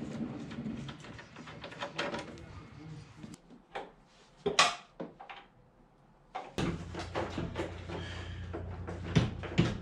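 Scattered knocks, clicks and clunks of hands and tools working on the body and parts at the front of a car while the AC condenser is being removed. The sharpest knock comes about halfway through.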